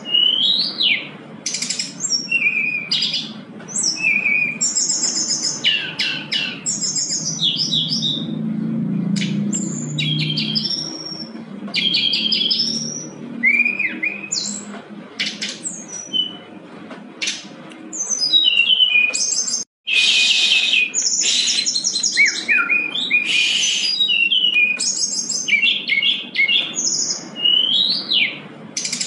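Brown-chested jungle flycatcher in full song: a fast, unbroken string of varied whistled phrases, rising and falling slurs and rapid trills, with one brief break about two-thirds of the way through.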